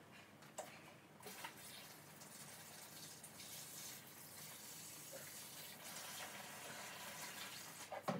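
Used bath water being poured from a bucket into a washing machine tub: a faint, steady pouring. There are a couple of light knocks about a second in.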